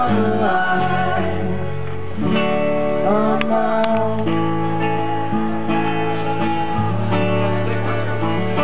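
Live folk band playing an instrumental passage: strummed acoustic guitars and a mandolin carrying the chords and melody.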